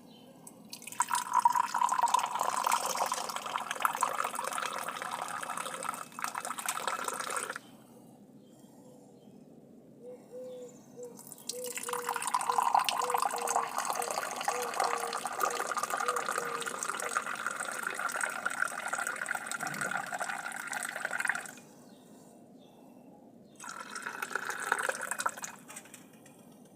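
Moroccan mint tea poured from a teapot into a glass three times: a long, splashing stream each time, its pitch rising slightly as the glass fills. The middle pour is the longest, and the last is short.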